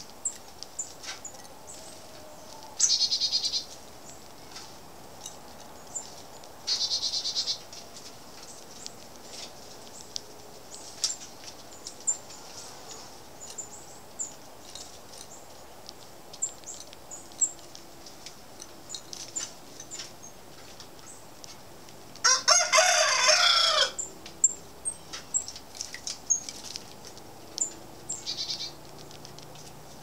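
Garden birds chirping, with many brief high chirps, a few short buzzy trills, and one loud drawn-out call of about a second and a half roughly two-thirds of the way through.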